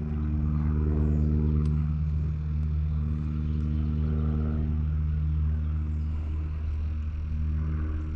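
An engine running steadily at a constant low pitch.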